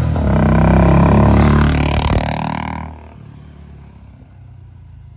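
Royal Enfield Classic 350's single-cylinder engine running through an aftermarket silencer as the motorcycle rides past, loud with the pitch sliding as it goes by. The loud exhaust note cuts off about three seconds in, leaving a faint steady traffic hum.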